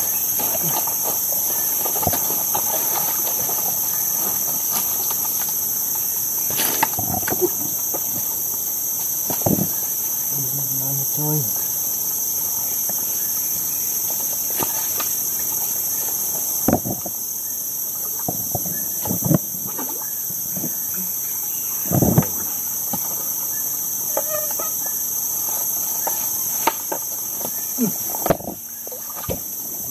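Steady, high-pitched chorus of forest insects, unbroken throughout. Scattered knocks and rustles of footsteps and handholds on fallen logs and undergrowth sound over it, the sharpest about 22 seconds in.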